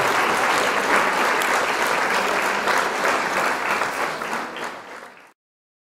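Audience applause with many hands clapping, fading out near the end.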